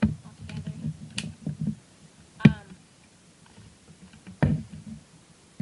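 A plastic SIG P226 airsoft spring pistol being handled: a run of clicks and knocks from its parts, with sharp clicks at the start, about two and a half seconds in and about four and a half seconds in.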